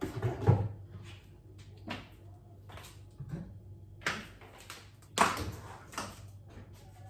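Household clatter during kitchen cleaning: a handful of sharp knocks and clunks of things being handled and set down, the loudest about half a second in and about five seconds in.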